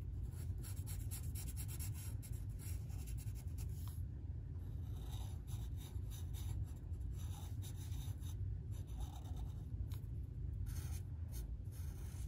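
Black felt-tip marker drawn across paper in many short, repeated strokes, over a steady low hum.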